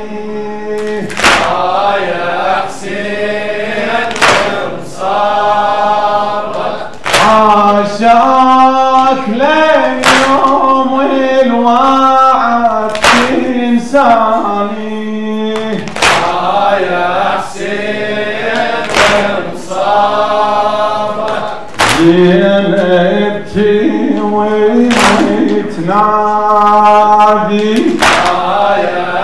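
Male voices chanting an Arabic mourning lament (noha) for Husayn, with loud sharp strikes in a slow, even beat about every three seconds, the rhythm of matam chest-beating.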